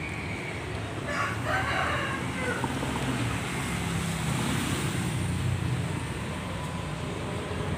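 An animal call of about a second, about a second in, over a steady low rumble.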